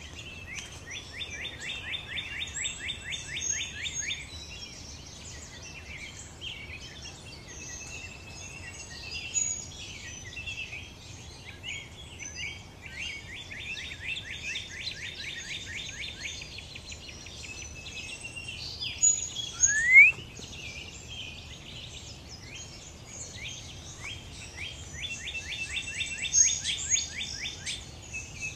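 Dawn chorus of several birds chirping. One bird repeats a fast trill of many quick notes three times, each lasting a few seconds and about ten seconds apart. A single loud rising whistle comes about two-thirds of the way through.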